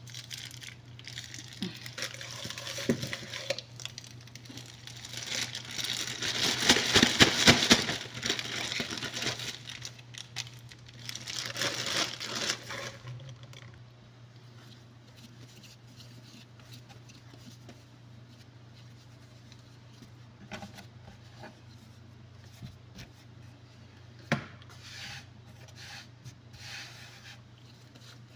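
Thin plastic bag crinkling and rustling as risen pizza dough is pulled out of it, loudest about six to eight seconds in. After that, quieter soft handling of the dough on a floured wooden board, with one sharp tap a little after halfway, over a steady low hum.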